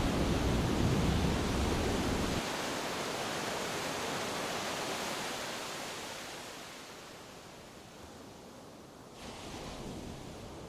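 Steady wash of ocean surf, with wind rumbling on the microphone for the first couple of seconds. The surf then grows gradually quieter and jumps back up briefly near the end.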